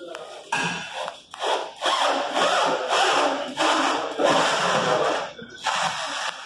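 A group of men shouting together in rhythm while heaving a heavy panel upright, about eight loud shouts roughly one and a half a second apart.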